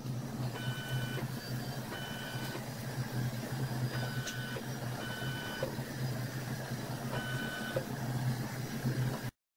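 Steady low electric hum of a 3D body-scanning rig with a motorized turntable, broken by a short electronic beep five times at uneven intervals. The sound cuts off abruptly near the end.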